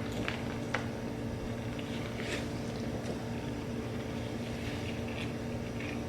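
Mouth-close chewing of food, a few soft crunches spread through the pause, over a steady low electrical-type hum in the room.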